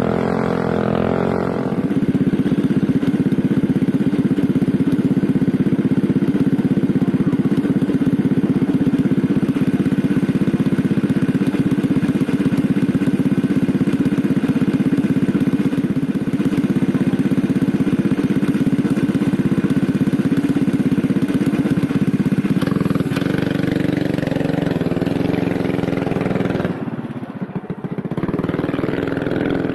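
ZR28R prototype kart engine, revving briefly in the first couple of seconds, then idling steadily with the kart stopped. Near the end the sound changes and drops quieter for a couple of seconds before picking up again.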